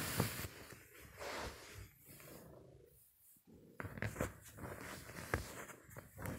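Woollen blankets rustling as they are lifted and pushed aside by hand, with a few short knocks from handling close to the microphone, sharpest about four and five and a half seconds in.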